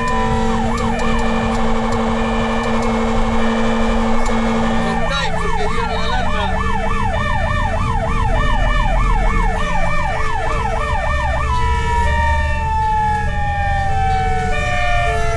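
Fire brigade rescue truck's electronic siren on an emergency run, changing modes: a very fast warble, then about five seconds in a yelp sweeping up and down about twice a second, then near the end a long falling wail, over the truck's engine. A second tone pulses about twice a second through the later part.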